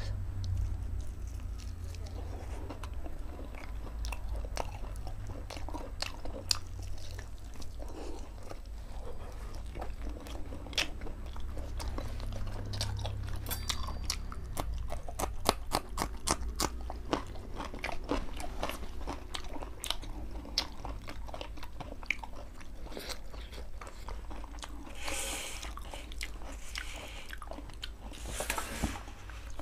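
Close-miked eating: biting and chewing a roasted chicken leg piece and a raw green chilli, with many sharp wet clicks and crunches, thickest about halfway through. Two short hissing rushes come near the end, over a steady low hum.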